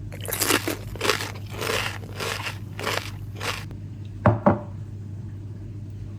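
Handling noise: about six short crinkling, scraping rustles in quick succession, then two sharp knocks close together, over a steady low hum.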